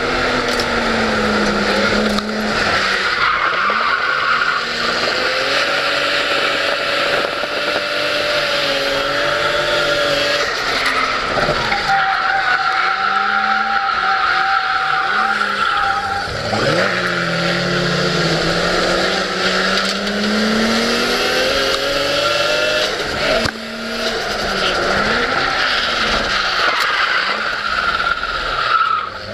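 Drift car's engine revving hard and its tyres squealing through a long slide, heard from inside the cabin. The revs climb and fall, dipping briefly every several seconds.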